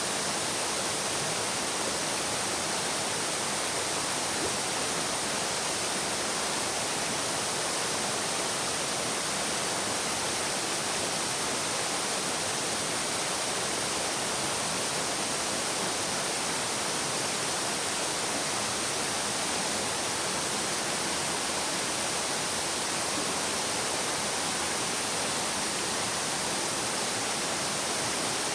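Shallow stream babbling, a steady, even rush of running water.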